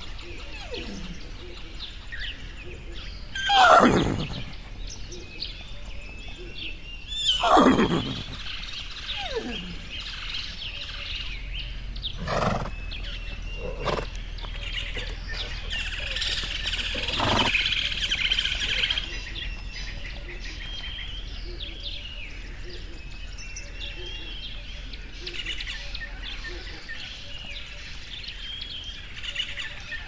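Horses calling: two loud whinnies a few seconds apart, each sliding steeply down in pitch, then a few shorter, fainter calls, over steady bird chirping.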